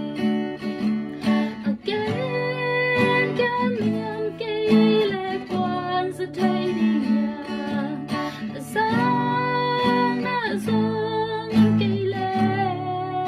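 A woman singing a slow song while she strums an acoustic guitar, her voice holding long notes over the steady strumming.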